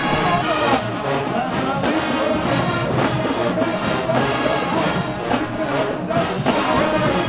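Marching band playing: a full brass section of trumpets and trombones carrying a melody over percussion with a steady beat.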